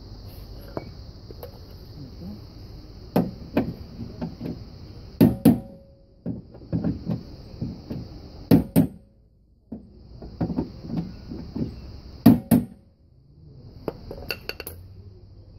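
Metal clicks and knocks of a socket tool working the screws in the edge of a car door, coming in short clusters of a few strikes with pauses between them.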